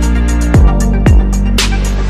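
Background electronic music with a steady beat: deep bass kicks about twice a second under sustained synth tones.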